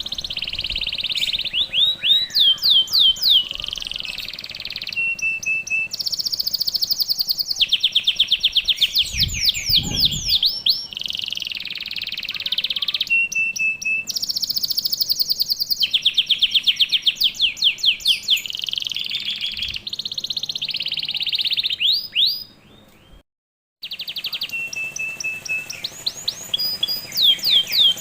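Domestic canary singing steadily in dense, rapid trills and rolling phrases of quick repeated notes. The song cuts out for under a second about two-thirds of the way through, then resumes.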